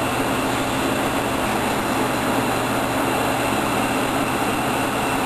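Lampworking torch flame burning with a steady rushing roar while glass is worked in it, with a low steady hum underneath.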